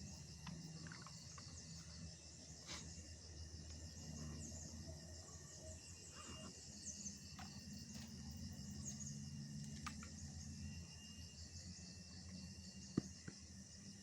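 Steady chorus of insects such as crickets, a fast, even chirring high in pitch with a thin steady whine beneath it. Low steady rumble throughout, with a few scattered sharp clicks; the loudest click comes near the end.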